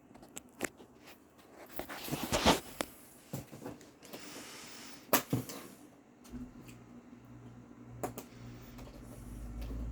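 Handling noises: scattered clicks and knocks, with a short rustle about two seconds in and a sharp click about five seconds in. A steady low hum sets in about six seconds in.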